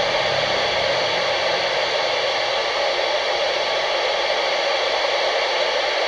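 Steady FM static hiss from a handheld amateur radio's speaker on the 29.6 MHz channel, the noise of an empty channel between stations' transmissions.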